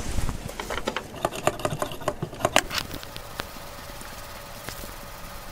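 Handling noise from gloved hands on a smartphone and a microfibre cloth: a quick run of small clicks and taps for about two seconds, then quieter rubbing over a faint steady hum.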